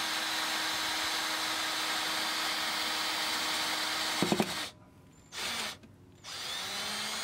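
Cordless drill boring a 1/4-inch pilot hole through an aluminum railing post: a steady run of about four seconds, ending with a short louder sound as it stops. Two briefer runs follow near the end.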